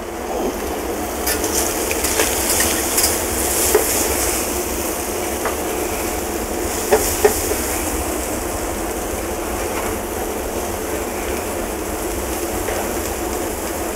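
Shrimp and julienned vegetables frying in oil in a steel pan over a gas burner, a steady sizzle, with scattered clicks and scrapes as the food is stirred in the pan.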